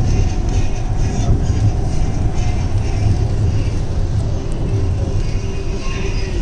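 Hyderabad Metro train heard from inside the car, running at speed through a station without stopping: a steady, loud rumble of wheels and running gear with a faint motor whine over it.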